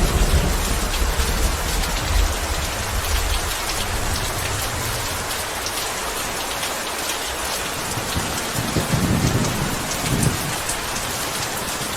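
Steady heavy rainfall hissing, with a low rumble of thunder at the start that dies away over the first few seconds and another short rumble of thunder about nine seconds in.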